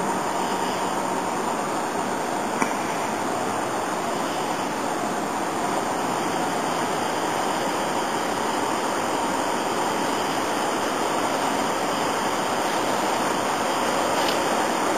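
Steady rushing noise, even and unbroken, with one faint click about two and a half seconds in.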